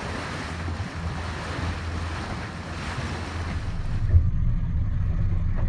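Wind buffeting the microphone and water rushing past a boat under way, over a low steady engine drone. About four seconds in the wind hiss drops away, leaving the low drone louder, with a sharp thump.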